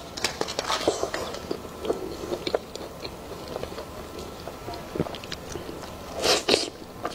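Close-miked mouth sounds of a person biting and chewing a soft, fruit-shaped snow-skin mochi (xuemeiniang): small wet smacks and clicks, with a louder burst of mouth noise about six seconds in as she takes a bite.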